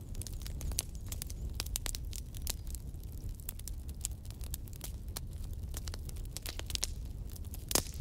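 Crackling: irregular sharp pops and clicks over a low steady rumble, with one louder pop near the end.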